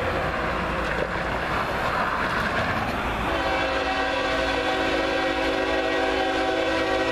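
Diesel locomotive horn on an approaching coal train, sounding one long held chord that rings out clear from about three seconds in. A passing car's tyre noise is mixed in over the first few seconds.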